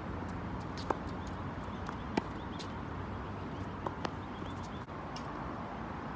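Tennis ball struck by racket and bouncing on a hard court during a rally: sharp pops about a second in and two seconds in, then two quicker, fainter ones around four seconds in, over a steady low rumble of wind.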